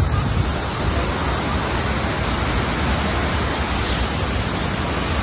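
Water pouring over a small dam spillway and churning below it, heard as a steady, even rushing.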